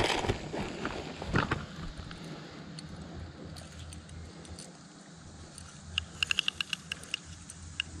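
Metal chain fish stringer jingling as a walleye is clipped onto it: a few clinks near the start, then a quick run of about ten bright metallic clicks around six to seven seconds in, over a faint steady hiss.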